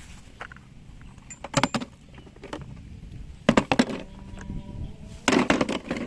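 Plastic toy vehicles clattering and knocking together as they are handled, in three short bursts of rattling clicks.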